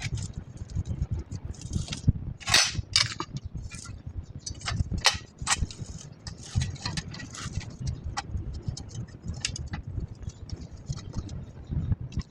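Irregular metallic clicks, clinks and rattles of small parts and tools being handled, over a low rumble of handling noise.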